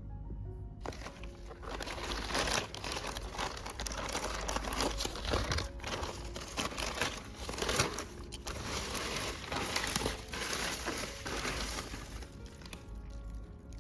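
Packaging being crinkled and handled, a dense run of crackling rustles that starts about a second in, over soft background music.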